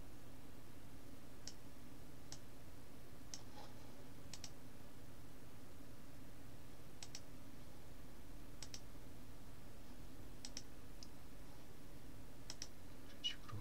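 Computer mouse buttons clicking: a dozen or so sharp clicks at irregular spacing, several in quick pairs, over a faint steady low hum.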